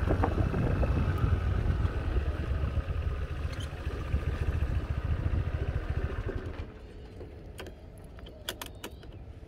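Honda motor scooter running at low speed with wind and road rumble. The engine sound drops away about two-thirds of the way through as the scooter stops, leaving a few light clicks.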